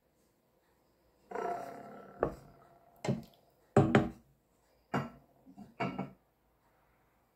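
A short rush of noise, then about six sharp knocks and clinks of kitchenware handled around a steel cooking pot.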